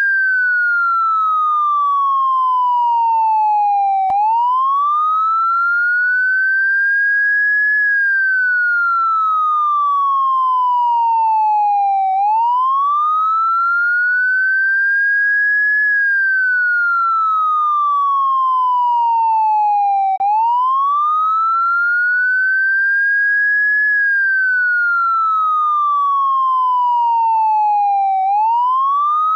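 Electronic police siren in a slow wail: a single pure tone climbs quickly, then slides down slowly, repeating about every eight seconds.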